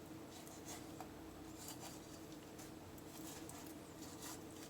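Faint, scattered scraping of a chef's knife along a chicken's rib cage as the breast meat is cut away from the bone, over a steady low hum.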